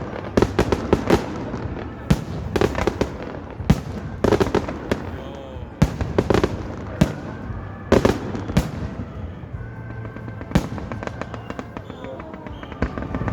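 Fireworks bursting overhead: a rapid series of sharp bangs, several close together at times, with crackling between them, thinning out in the last couple of seconds.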